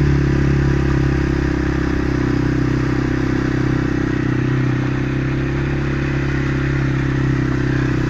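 Small vehicle engine running steadily at a slow, even crawl, with a light hiss over it.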